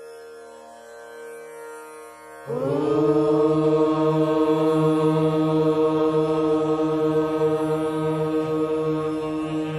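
A steady, quiet drone, then about two and a half seconds in a group of singers comes in on one long chanted note that slides up into pitch at the start and is held over the drone.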